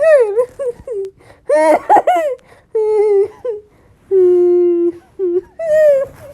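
A string of loud, high-pitched laughing squeals from a woman, in short separate bursts, one held for most of a second about four seconds in.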